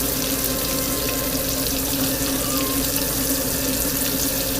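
Zucchini frying in oil, a steady sizzling hiss, with a steady low hum underneath.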